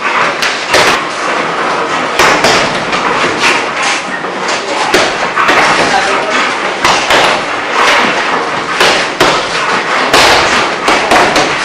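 Punches and kicks landing on a hanging heavy punching bag: sharp thuds at irregular intervals, a dozen or so, over a busy background.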